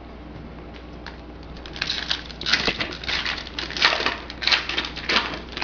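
Crinkling and rustling of a trading card pack's wrapper being opened, in irregular crackly bursts that start about two seconds in.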